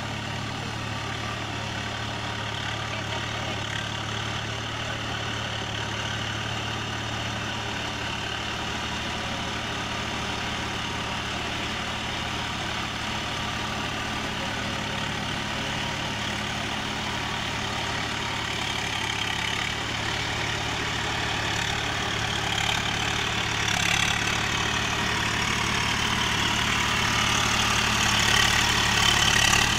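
Swaraj 744 FE tractor's three-cylinder diesel engine running steadily under load, pulling a rotavator that churns the mud and water of a flooded paddy field. It grows louder over the last few seconds as the tractor comes close.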